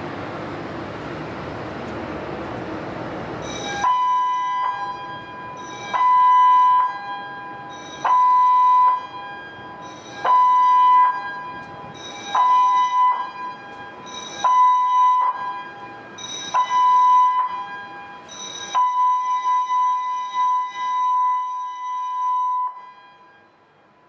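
Ferry M/S Amorella's alarm sounders on a ship's alarm test, starting about four seconds in: a loud, high electronic alarm tone pulsing seven times about two seconds apart, each pulse opening with a click, then one long tone of about four seconds that cuts off. Seven short signals and one long is the pattern of a ship's general emergency alarm.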